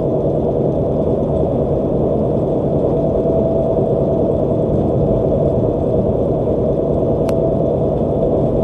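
Steady low rumble of engine and tyres heard inside a truck's cab at highway speed, with one faint click about seven seconds in.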